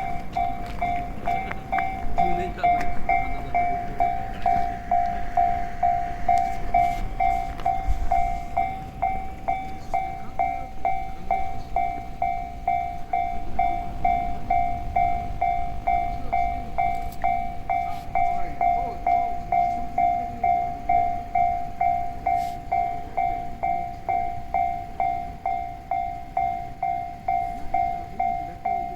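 Level-crossing warning bell ringing, an even electronic ding at about one and a half strikes a second. Under it, a train passes with a low rumble and scattered clicks of wheels over the rails; the rumble is stronger in the first half.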